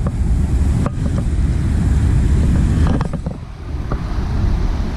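Wind rumbling on the microphone, with a few light clicks about a second in and again around three seconds.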